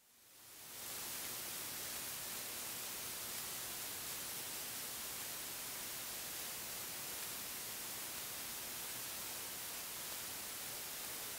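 Steady, even hiss with no other sound, fading in after a brief dead silence: background noise of the recording once the dance music has cut off.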